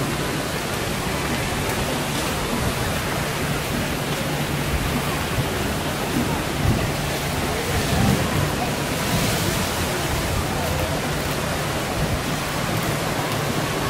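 Steady rushing outdoor noise of surf and breeze, with faint voices of people now and then.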